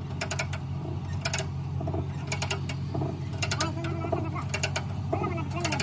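Ratchet of a hand-operated screw tool clamped to a steel truck chassis rail, cranked back and forth: a short burst of rapid clicks about once a second, over a steady low hum.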